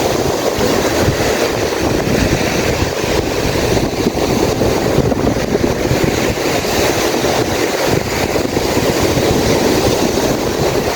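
Steady, loud rushing of wind buffeting the microphone, mixed with the wash of surf on the beach.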